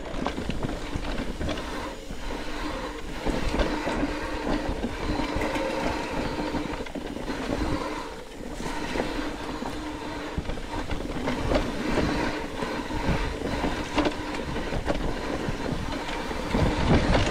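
Mountain bike rolling down a dirt singletrack trail: steady tyre noise and chain and frame rattle, with many small knocks as the bike goes over roots and rocks.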